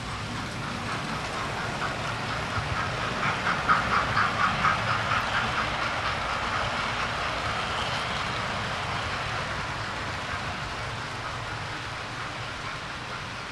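Model train running past on its track, the wheels rattling and clicking over the rail joints; it grows louder as it passes nearest, with a quick run of clicks about four seconds in, then slowly fades.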